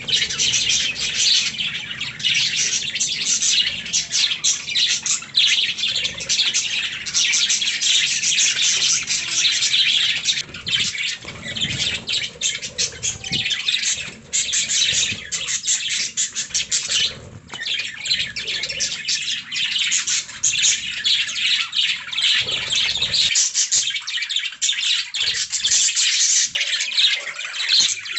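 Budgerigars chirping and warbling in a dense, unbroken stream of rapid high chirps.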